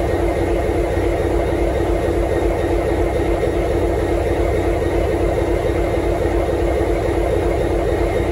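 EMD 12-645E3C twelve-cylinder two-stroke diesel engine of an N class locomotive running steadily, heard close beside its engine-compartment doors: a rough low rumble with a steady hum on top, unchanging throughout.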